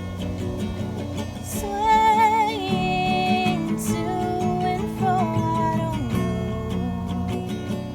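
Song with acoustic guitar strumming throughout. A sung melody comes in about two seconds in, with held notes that waver in vibrato, and stops near six seconds.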